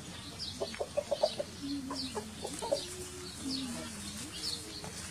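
Chicken clucking: a quick run of short clucks about a second in, followed by drawn-out wavering calls.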